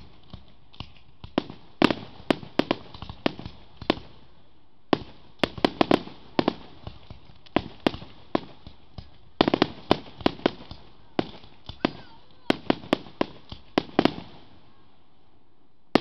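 Aerial fireworks shells bursting in quick, irregular volleys of sharp bangs, several a second, with brief lulls between clusters; the bangs thin out near the end.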